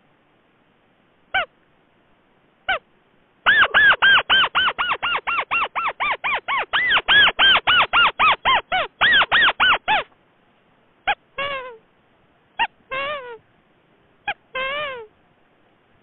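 Rail calls from a paddy-field bird-lure recording: a few single calls, then a fast series of about five notes a second for some six seconds, each note rising and falling in pitch, followed by a few downward-sliding calls.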